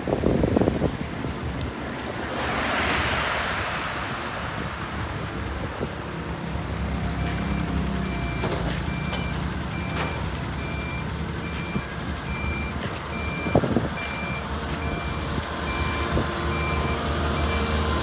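Diesel road rollers running on a paving site, with a reversing alarm beeping steadily about one and a half times a second from about seven seconds in. A vehicle passes at the start.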